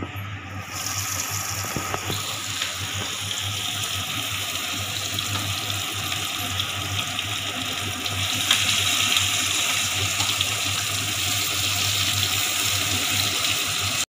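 Marinated chicken kebab pieces deep-frying in hot oil in a kadai: a steady sizzle that starts about a second in and gets louder about eight seconds in, as more pieces are lowered into the oil.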